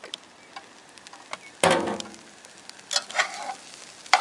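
Metal slotted spatula stirring and scraping seasoned tofu crumble as it browns in hot oil in a deep pot. Two louder scrapes come about one and a half and three seconds in, among scattered light clicks.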